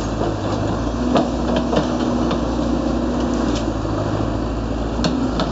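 Tracked excavator's diesel engine running steadily while it demolishes brickwork, with a few sharp knocks and clatters of rubble; the clearest knocks come about a second in and near the end.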